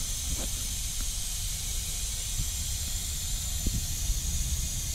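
Nitrogen hissing steadily through the cylinder regulator and charging hose into a heat pump's refrigerant lines, pressurising the brazed repair for a leak test, with a low rumble underneath.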